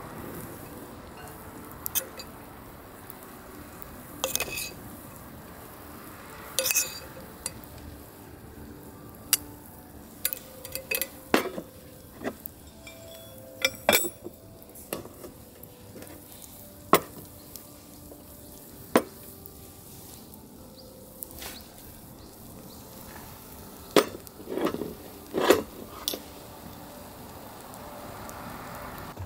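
Metal cookware and utensils clinking and scraping in irregular taps, with a faint steady sizzle of food in a pan underneath. The clatter is busiest and loudest near the end.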